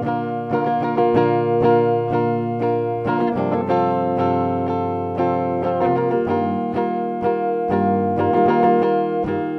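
Electric guitar amplified through a PA, picking chords in an even rhythm as an instrumental break between the chorus and the next verse of a pop song, with no vocal.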